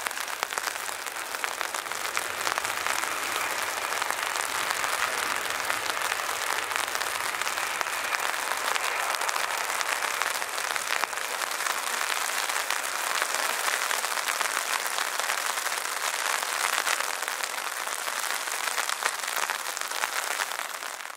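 Heavy rain pattering densely, a steady crackling hiss with no deep rumble under it.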